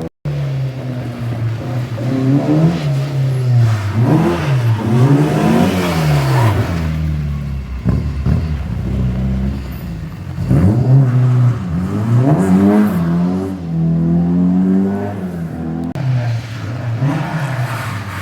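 Car engine revving hard, its pitch rising and falling again and again as the throttle is worked during a drift.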